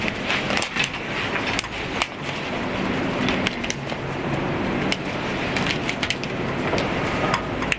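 Small scattered clicks of metal collet adapters being handled and threaded onto a laser boresighter, over a steady background rumble that swells slightly over the first few seconds.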